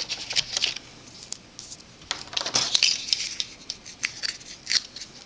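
Hands handling cardstock and paper, with irregular rustles and small crackles, as the backing is worked off a strip of double-sided score tape.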